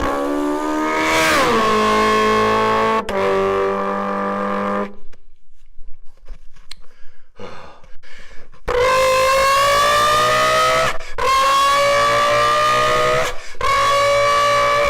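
A person imitating a car engine with their voice: a buzzy engine note that drops in pitch and holds, a few seconds of quieter sputtering, then three long notes that each climb slowly and break off briefly between them, like upshifts through the gears.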